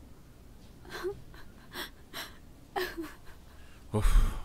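A woman crying in several short gasping sobs and whimpers, then a louder dull thud about four seconds in.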